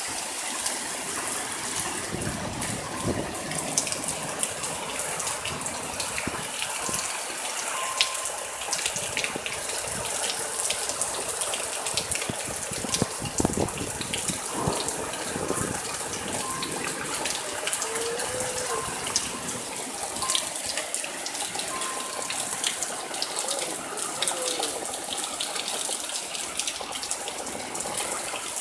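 Heavy rain pouring down in a severe thunderstorm: a steady rushing hiss thick with the small taps of drops, with strong wind gusting a couple of times.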